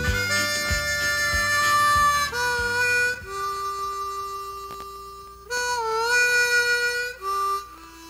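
Theme music led by a harmonica playing long held notes, some bent in pitch, over a steady bass-and-drum beat that drops out after about two and a half seconds, leaving the harmonica alone.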